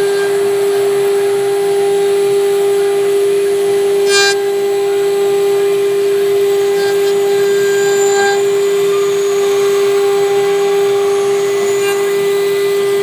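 Water-cooled spindle of a CNC router running at a steady high whine while its carving bit cuts a wooden head turned on the rotary axis, with a brief sharper rasp about four seconds in.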